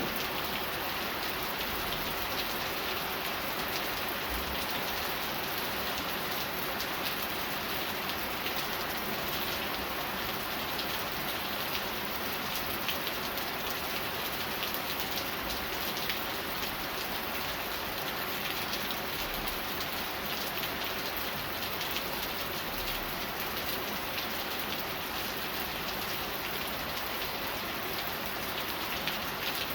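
Steady rain falling and pattering on surfaces, an even hiss with many small drop ticks throughout.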